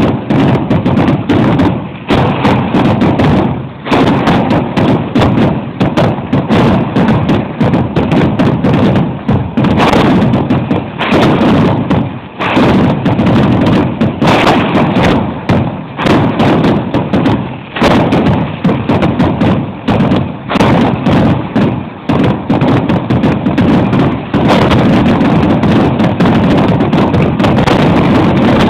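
Aerial fireworks exploding in a loud, rapid, continuous barrage, the bangs overlapping with hardly a pause. In the last few seconds they merge into one steady, unbroken din.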